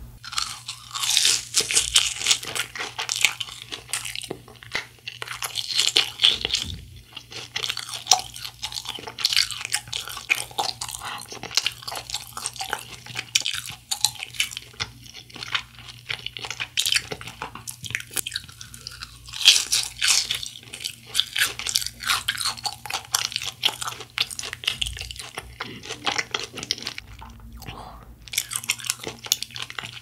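Crunching and chewing of a fried cheese ball's crisp crust, bite after bite, in clusters of crackling.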